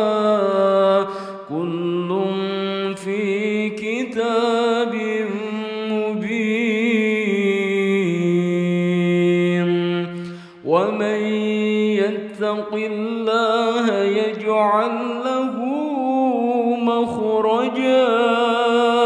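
Quran recitation: a solo voice chanting in slow, melodic tajwid style, drawing out long held notes that glide between pitches, with a short breath break about ten and a half seconds in.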